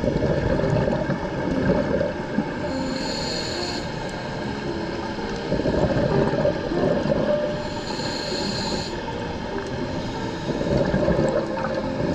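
Scuba diver breathing through a regulator underwater: a short hiss with each inhalation and a longer bubbling rush with each exhalation, one breath about every five seconds.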